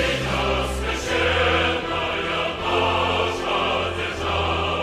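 Background music: choir voices holding long chords over a deep bass, the chords changing about once a second.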